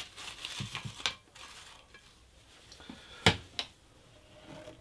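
Crockery and cookware clinking and knocking as food is served out: light clicks in the first second, then a sharp clatter about three seconds in, the loudest sound, followed quickly by a second knock.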